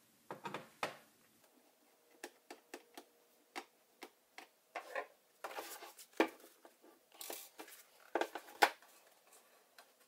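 A screwdriver turning out a small screw from a laptop's plastic bottom case, and the laptop being handled: scattered light clicks, ticks and scrapes, with a few louder knocks about six seconds in and near the end.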